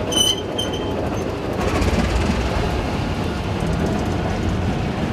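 TEM2 shunting diesel locomotive rolling along the track: a steady rumble of engine and wheels on rail that grows a little louder after the first second and a half. There is a brief high squeal near the start.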